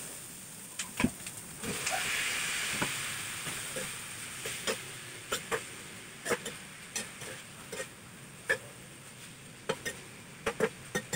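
A metal spoon stirs and clinks against an aluminium pan of frying onion, ginger and green chillies. About two seconds in, raw chicken pieces go into the hot oil and a sizzle swells up, then slowly dies down under continued stirring and scraping.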